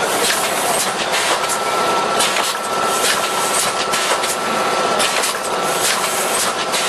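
Automatic suppository production line running: a loud, dense mechanical clatter of many quick clicks, with a steady high whine joining about a second and a half in.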